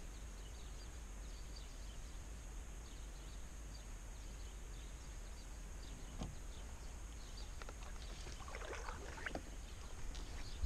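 Quiet lake ambience heard from a canoe: a steady low rumble and a faint high hiss, with scattered small ticks and a few light water and knocking sounds on the canoe that grow busier near the end.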